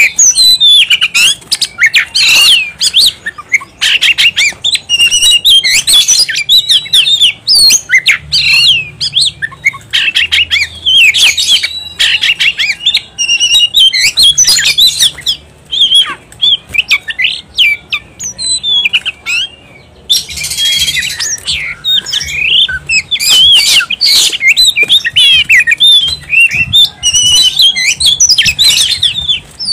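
Oriental magpie-robin (kacer) singing loudly and without pause: a fast, varied stream of whistles, chirps and trills, the energetic full song that keepers call gacor. A harsh rasping burst comes about twenty seconds in.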